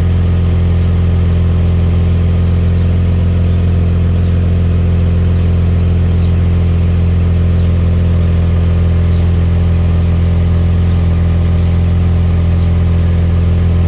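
1997 Lexus LX 450's 4.5-litre inline-six idling steadily with a deep, even hum. The owner suspects an exhaust leak.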